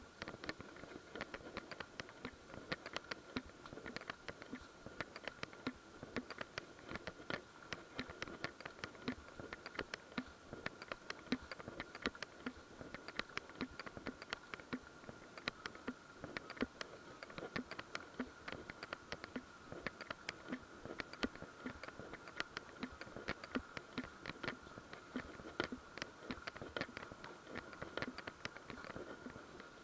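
Footsteps and brushing through dry leaf litter and undergrowth: a dense run of irregular crackles and scratches, with a faint steady high tone underneath.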